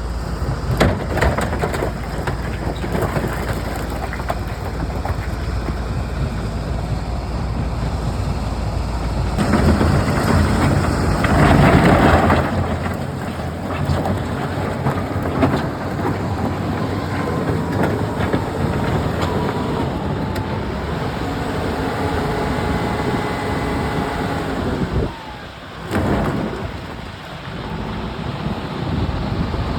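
Stone-crushing work: a steady rumbling noise with scattered knocks of rock, a louder stretch about ten to twelve seconds in, and a faint steady machine whine through the second half.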